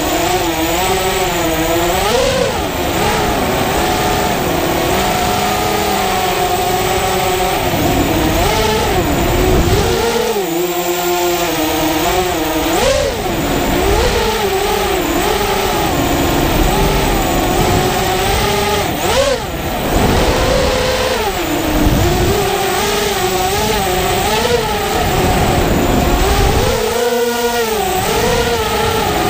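FPV racing quadcopter's motors and propellers whining, heard from the onboard camera. The pitch swoops up and down continually as the throttle changes.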